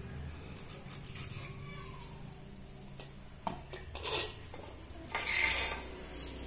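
Cut beetroot pieces being handled in a stainless steel bowl: a few light metal clinks and scrapes, the loudest a little over five seconds in.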